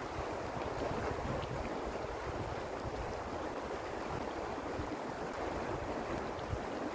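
Steady rush of a shallow river flowing past its bank, with wind buffeting the microphone.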